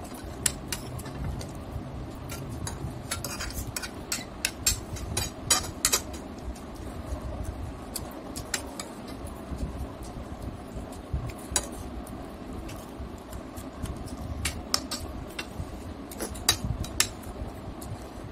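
Metal spoon clinking and scraping against a plate as fried rice is scooped up and eaten, in irregular sharp clinks, several in quick succession at times.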